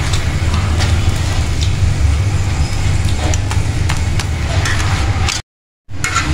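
Gas stove burner flame rumbling steadily under an iron tawa, with light taps and scrapes as a roti is flipped and pressed with a spatula. The sound cuts out for a moment about five seconds in.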